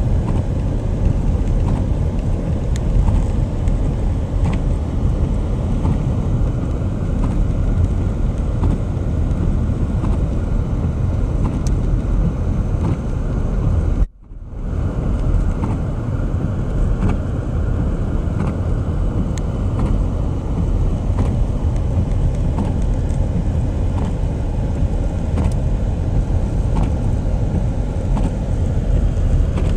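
Car driving: a steady low rumble of road and engine noise, with a faint whine that slowly rises and falls. It breaks off in a brief drop-out about halfway through, then carries on.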